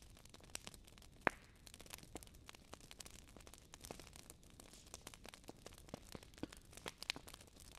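Fire crackling: a steady run of small pops and snaps, with one sharper, louder pop about a second in.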